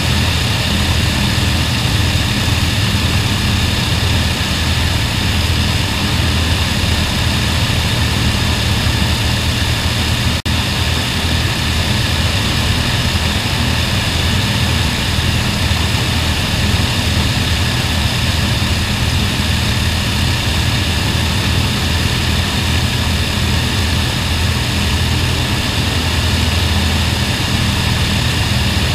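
Avro Lancaster bomber's Merlin V12 piston engines and propellers running steadily on a ground run.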